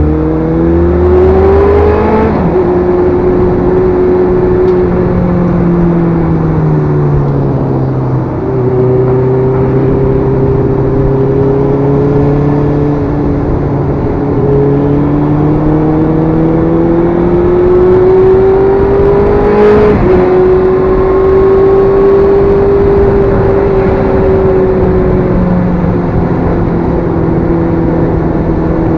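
Benelli TNT600S motorcycle's inline-four engine running under way, its pitch climbing with acceleration and dropping abruptly at gear changes about two, eight and twenty seconds in, then holding steady. A steady rush of wind and road noise runs underneath.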